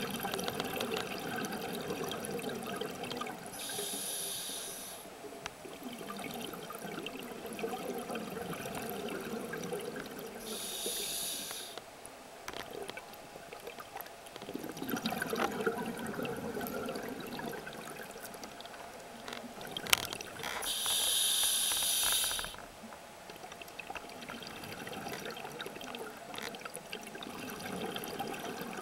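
Scuba diver breathing underwater through a regulator: three hissing inhalations several seconds apart, with bubbling, gurgling exhalations between them. A single sharp click comes just before the third inhalation.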